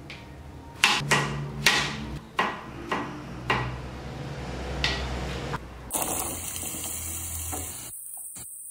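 A kitchen knife chopping a zucchini on a plastic cutting board: about six sharp knocks of the blade on the board over the first five seconds. Then a steady hiss takes over.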